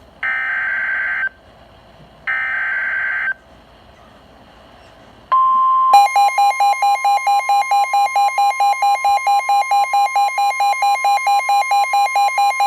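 Emergency Alert System SAME header: two one-second bursts of buzzing digital data tones, a second apart. About five seconds in, the NOAA Weather Radio steady 1050 Hz warning alarm tone starts. Under a second later a second electronic alarm joins it, beeping about four times a second, and the two sound together to the end.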